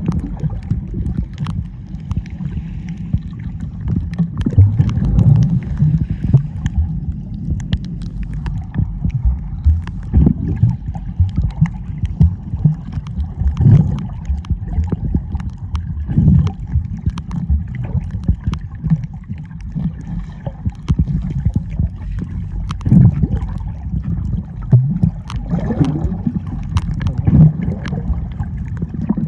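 Sea water sloshing and gurgling close to the microphone, with a low rumble that surges irregularly every few seconds.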